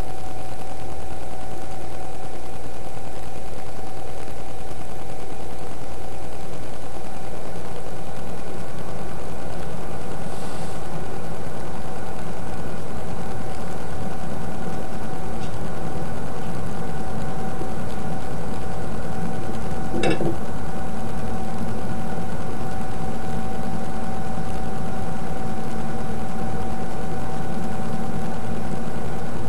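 Steady mechanical whirring and hum of an 8 mm film projector running, with one short click about twenty seconds in.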